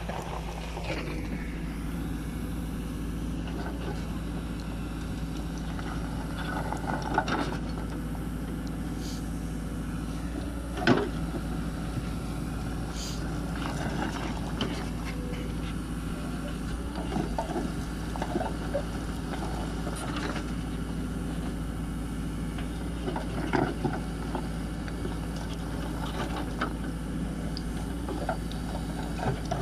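Cat 434E backhoe loader's diesel engine running steadily as its front loader bucket works a pile of paving stones, with scattered clatters and knocks of stone against stone and steel.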